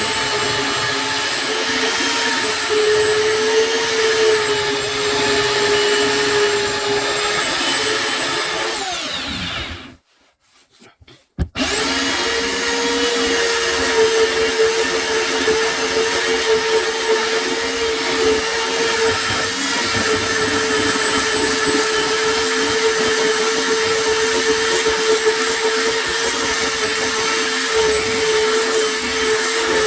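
Electric power sander running on a wooden tabletop: a steady motor whine over a coarse hiss. About a third of the way in it winds down and stops, there is a second or two of quiet, then it starts up again and runs steadily.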